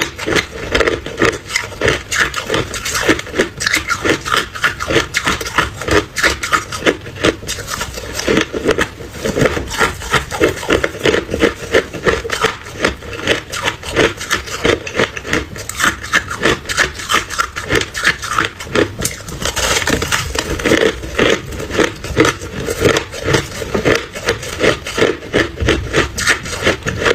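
A person chewing and crunching ice close to the microphone: rapid crisp crunches, several a second, without pause.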